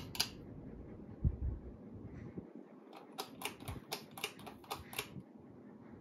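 Ceiling fan pull-chain switch clicking: two sharp clicks at the start, a dull thump about a second later, then a quick run of about ten light clicks and chain rattles between three and five seconds in.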